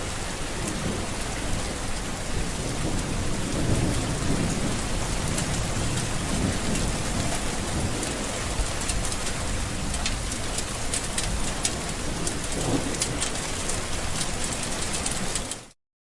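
Steady rain with a low thunder rumble underneath, sharp drop ticks growing more frequent in the second half; the sound cuts off suddenly near the end.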